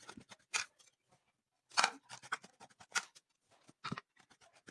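A spoon scraping and tapping in a bowl as ground spice powders are mixed: short, irregular scrapes and clicks, a few stronger than the rest.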